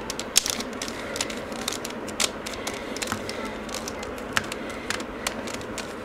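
Irregular plastic clicks and clacks of a mirror cube's layers being twisted by hand, a few sharper snaps among them, over a steady hiss.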